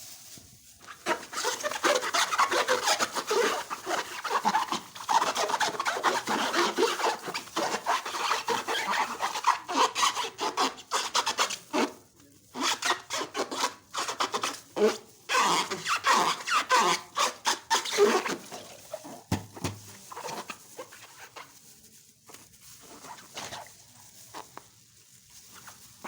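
Rubber balloons rubbed and squeezed by hand: a run of dense, scratchy rubbing strokes with a few falling squeaks. It turns quieter and sparser after about nineteen seconds.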